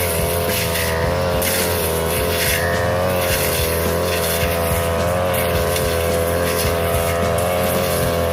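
42cc brush cutter engine running steadily at high revs while its blade cuts through tall brush, with irregular hissy swishes over the engine note.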